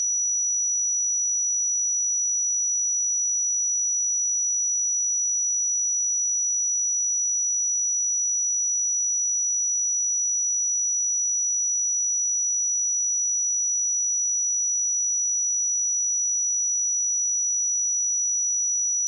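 A pure 5876 Hz sine-wave test tone: one steady, unwavering high-pitched whistle at a constant level.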